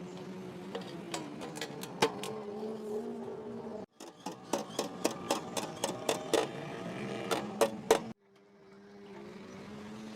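Workshop sounds: rapid sharp taps, about two or three a second and loudest in the middle of the stretch, over a steady hum. The sound cuts off abruptly twice.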